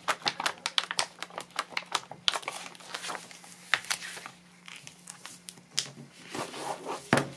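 Paper pages of a hardcover picture book flapping and rustling as a hand flips one page rapidly back and forth, about five flaps a second at first, then slower page handling as the book is closed, with a thump near the end.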